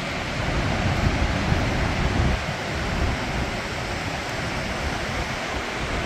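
Steady rushing roar of Victoria Falls and the Zambezi rapids in the gorge below, with irregular low wind buffeting on the microphone.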